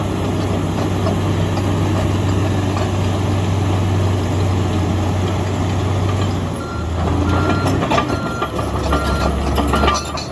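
Komatsu D85EX bulldozer's diesel engine running steadily, dipping briefly and picking up again. From about seven seconds in, a reversing alarm beeps at an even pace as the machine backs up.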